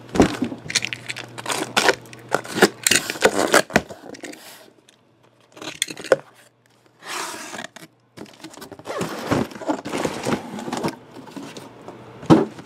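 Cardboard shipping case being cut and torn open: scraping, ripping of packing tape and rustling, knocking cardboard, with a few seconds of near quiet in the middle and a sharp knock near the end.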